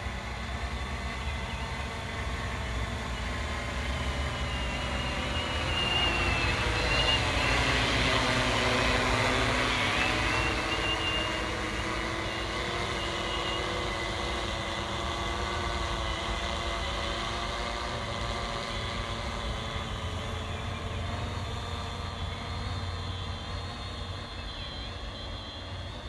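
Walkera Tornado H920 hexacopter in flight, its six electric motors and propellers making a steady whine with a wavering high tone. It grows louder about six seconds in, is loudest for a few seconds as it comes close, then settles back.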